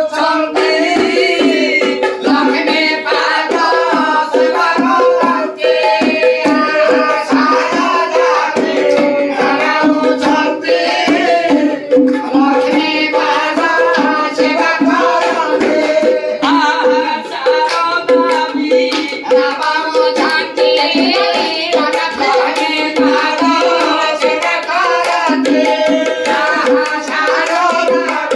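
Sankirtan: voices singing a devotional chant, accompanied by hand-played barrel drums (khol) beating a fast rhythm. A steady held tone runs underneath throughout.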